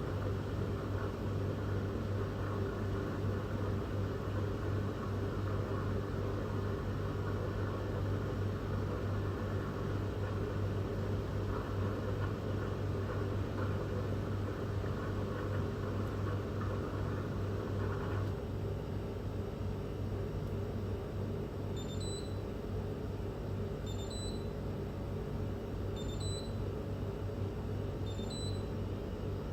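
A machine running with a steady low hum and hiss. About eighteen seconds in, the higher part of the hiss drops away, and from about twenty-two seconds a short high beep sounds every two seconds.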